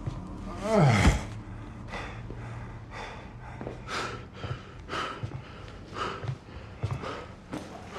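Heavy, ragged breathing of a man winded after a hand-to-hand fight, a sharp breath about once a second. About a second in there is a louder groan that falls in pitch.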